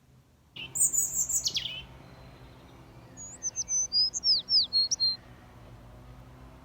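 Songbirds singing. A quick run of high notes falls in pitch about half a second in, then a phrase of sharp high chirps and downward-sweeping whistles comes around the middle, over a faint steady low hum.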